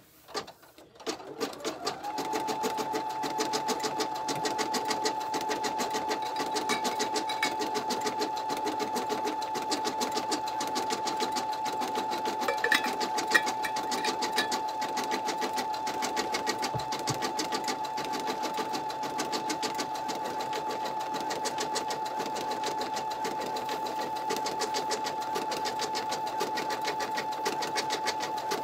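Home embroidery machine stitching a single-line design through vinyl and stabilizer in the hoop. After a few clicks as it starts, it settles into fast, even needle strokes over a steady motor whine. A brief knock comes about halfway through.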